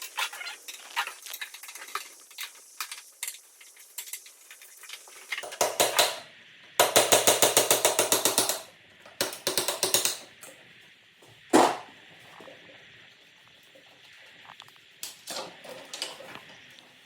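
Metal hand tools clicking and clattering against motorcycle steering-head parts as the steering stem is taken apart. There is a fast run of even clicks in the middle, like a ratchet being spun, and one sharp metallic clank a little later.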